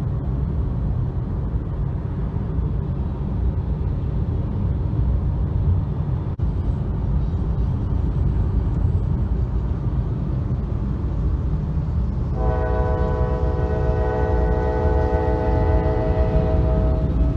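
Steady low road and wind rumble inside a moving car running alongside a train. About twelve seconds in, a Kansas City Southern diesel locomotive's horn sounds one long multi-note chord for about five seconds.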